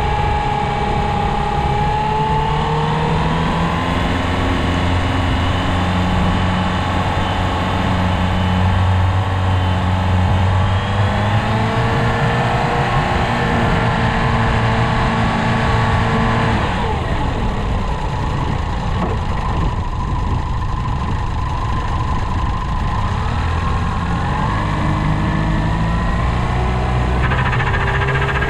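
New outboard motor running during its break-in, its engine speed rising and falling, with a drop about two-thirds of the way through.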